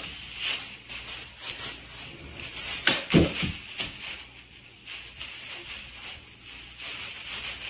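Plastic bag crinkling and rustling as it is dragged across a wooden floor and pounced on by an owl, with scattered light clicks and a louder knock and a few low thuds about three seconds in.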